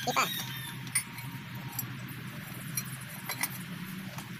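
Wrench and metal parts clinking against the rocker arms and valve adjusters of a Mitsubishi 8DC11 diesel engine as the valve clearances are set during a tune-up: a few sharp, separate metallic taps over a steady low hum.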